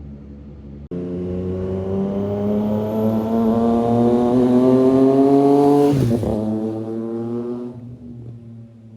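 2018 Triumph Street Triple's three-cylinder engine through a Racefit Growler X slip-on exhaust, accelerating hard. Its note starts abruptly about a second in and climbs steadily in pitch and loudness. It drops sharply about six seconds in, then climbs again and fades away.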